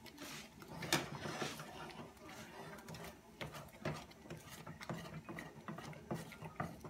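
A cooking utensil working scrambled eggs in a skillet: irregular light clicks and taps against the pan.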